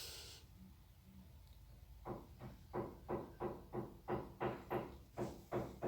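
A breath fading out just after the start, then, about two seconds in, a rapid run of knocks or taps, about four a second, each briefly ringing.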